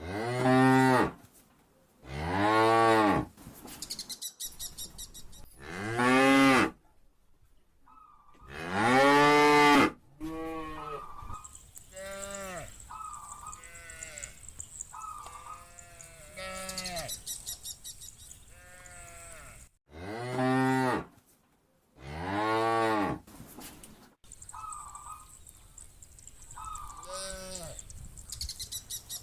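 Cows mooing: six loud, drawn-out moos, with many quieter, shorter moos between them.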